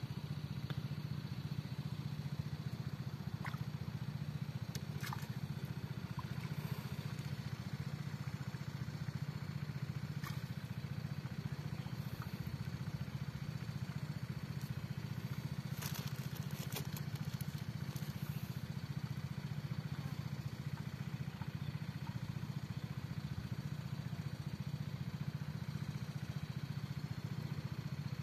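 Small engine of an irrigation water pump running steadily at a distance, a constant low drone. A few faint clicks now and then.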